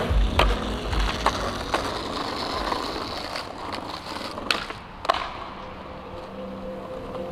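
Skateboard wheels rolling on pavement with a rough steady hiss, and sharp clacks of the board: several in the first two seconds, then two louder ones about four and a half and five seconds in. Soft sustained music notes come in near the end.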